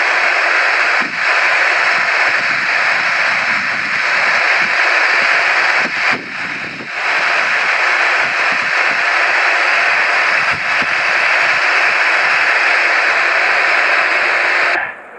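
Steady jet engine noise with a thin high whine from the taxiing Boeing 737-800's CFM56 turbofans. It dips briefly twice and cuts off suddenly near the end.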